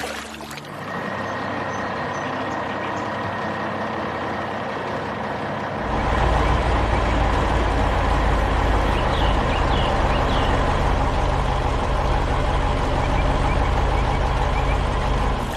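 A heavy vehicle's diesel engine running steadily, becoming louder and deeper about six seconds in, as when it works under more throttle.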